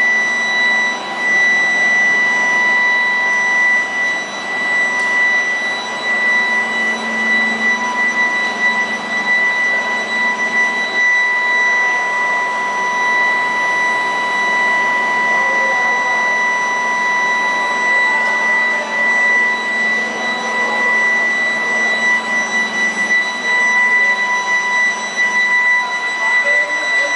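A 175 kW, 300 kg-capacity induction melting furnace running under power, with a steady high-pitched electrical whine over a noisy background hum.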